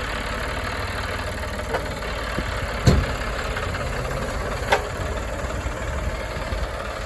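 Truck engine idling steadily, with two sharp knocks, one about three seconds in and another about two seconds later.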